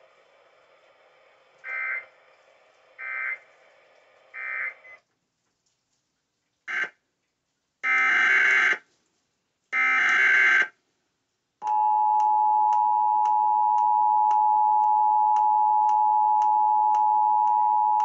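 Emergency Alert System tones: three short buzzy SAME data bursts, then after a pause three more (the first brief, the other two about a second long), and from about halfway through the steady two-tone attention signal, held for the rest.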